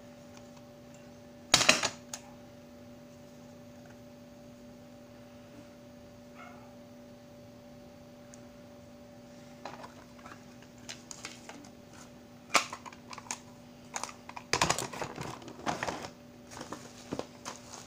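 Plastic cassette tape and cassette cases clicking and clattering as they are handled. A sharp clatter comes about a second and a half in, then a quiet stretch, then a run of small clicks and knocks through the second half. A steady hum sits underneath.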